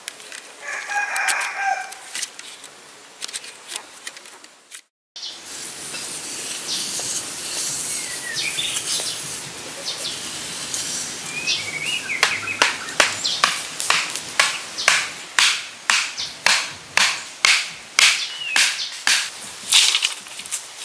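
A puppy whimpers briefly, then a stick scrapes over packed dirt. For the last several seconds wooden stakes are pounded into the ground, sharp knocks about two a second, while birds chirp now and then.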